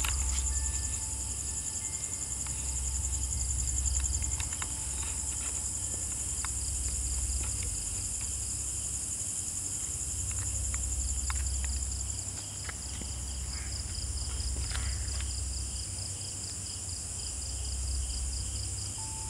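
Night insect chorus of crickets keeping up a steady, finely pulsing high trill, over a low rumble. A few faint ticks and taps sound in the middle.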